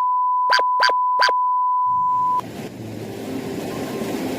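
A steady electronic beep tone at one pitch, with three short blips over it about a second in. It cuts off sharply about two and a half seconds in, leaving a faint, even background hiss.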